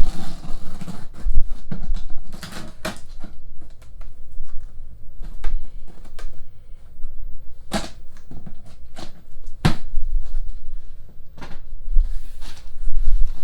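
A large cardboard shipping box being opened and handled: irregular knocks, scrapes and rustling of cardboard, with a few sharper knocks about eight and ten seconds in.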